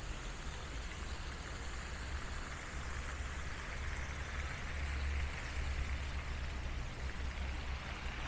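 Pond fountain's spray falling back onto the water, a steady rain-like splashing hiss that grows a little louder around the middle, over a low rumble.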